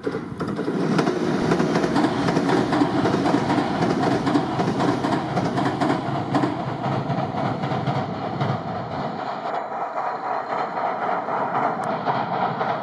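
Six-car electric local train passing, a 701 series four-car set coupled to a two-car E721 series set, its wheels clattering over the rails in a dense run of clicks. The low rumble drops away about nine seconds in, leaving a higher running noise.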